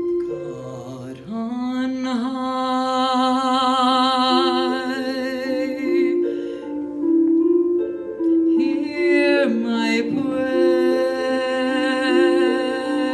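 Slow choral music: a melody held with strong vibrato over sustained lower parts that move in slow steps, with a short lighter passage in the middle.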